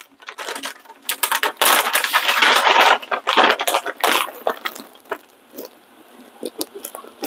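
Crisp cooked bacon being crumbled by hand over a dish, crackling and rustling. It is densest a second or so in for about a second and a half, then thins to scattered small crackles and clicks.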